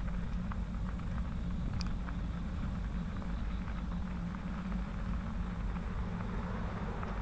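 Bicycle riding noise on a wet gravel trail: a steady low rumble of wind and tyre roll on the camera microphone, with scattered small ticks of grit and a brief high squeak about two seconds in.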